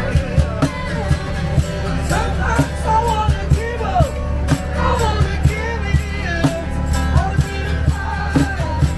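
Street buskers singing to a strummed acoustic guitar, with strums about twice a second under the sung melody.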